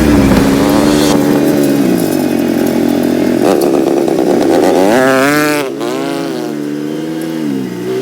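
Small dirt bike engine revving up and down as it rides, its pitch climbing sharply about five seconds in and then dropping back.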